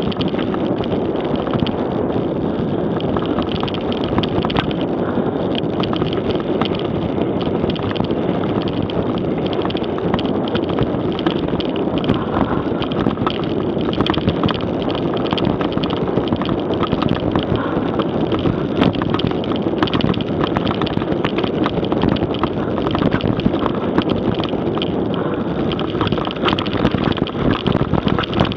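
Mountain bike coasting fast down a rough dirt forest trail: wind noise on the Garmin VIRB action camera's microphone over the rumble of tyres on dirt and stones, with frequent small rattles and clatter from the bike.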